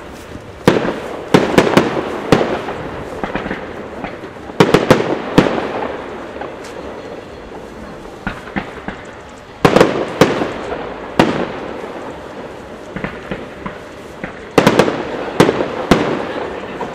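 Aerial firework shells bursting overhead in clusters of sharp, echoing bangs, a new cluster every few seconds, with rumbling reverberation and crackle dying away between them.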